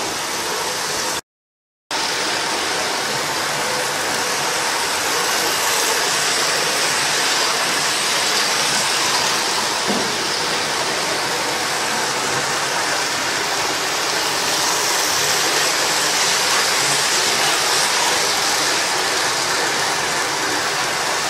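Electric model trains running round the track: a steady whirring rush from the motors and wheels on the rails. The sound cuts out briefly a little over a second in.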